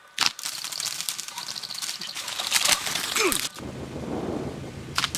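A catapult shot cracks at a roosting pheasant, followed by about three seconds of rustling, clattering and flapping in the twigs that stops abruptly. A low steady hum follows, with another sharp crack near the end.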